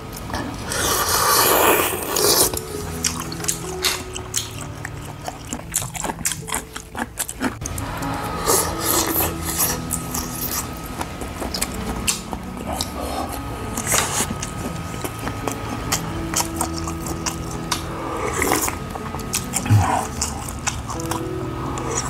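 A man slurping and chewing seafood kalguksu noodles and clams, with loud slurps about half a second in, again after about 14 seconds, and once more near the end, and small wet clicks of chewing between them. Background music plays throughout.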